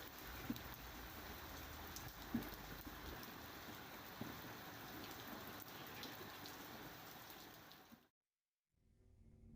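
Rain falling steadily and faintly, with a few louder drops, fading out about eight seconds in. After a brief silence, music starts to swell near the end.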